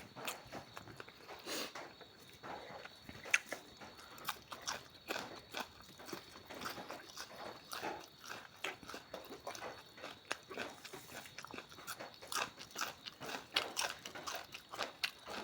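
Close-miked eating: chewing and crunching with many small, irregular wet mouth clicks and crackles.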